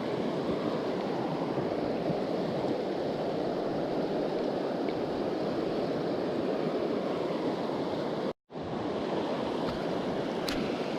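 Steady rush of a mountain river's flowing water, even and unbroken, with a brief dropout about eight seconds in.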